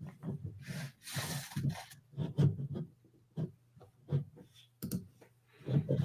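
Quiet, irregular rustles and soft bumps, several short ones a second, over a faint steady hum.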